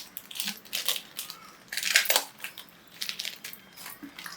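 Plastic food packets rustling and crinkling as they are handled, in a string of short, irregular crackles with louder ones about one and two seconds in.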